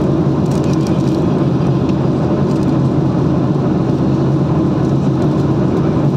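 Steady engine and road noise heard from inside a moving car's cabin, a low, even drone.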